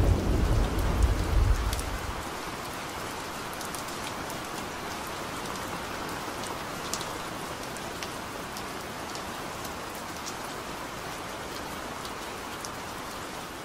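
A low rumble of thunder dying away over the first two seconds, then steady rain with scattered drop ticks, fading out at the very end.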